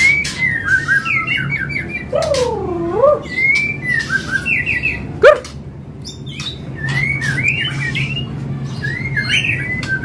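Caged songbirds singing together, white-rumped shamas (murai batu) among them, in quick whistled phrases, with a low swooping whistle a couple of seconds in and one loud, sharp call about five seconds in.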